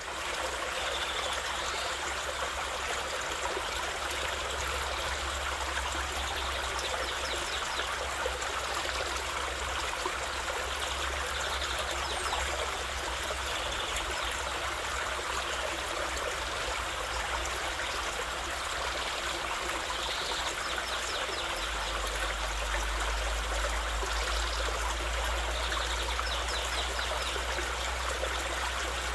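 A stream running and trickling steadily. A low rumble underneath gets louder about twenty seconds in.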